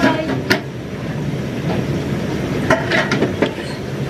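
Busy restaurant din: a steady rumbling hum with a few sharp clinks of chopsticks and ceramic tableware.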